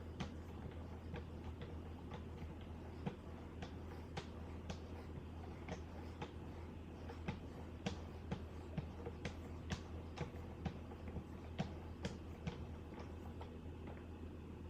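Light, irregular clicks and taps, roughly one a second and coming faster in the second half, from 2-micron leather strops on a Wicked Edge guided sharpener being stroked slowly upward along a knife edge, over a steady low hum.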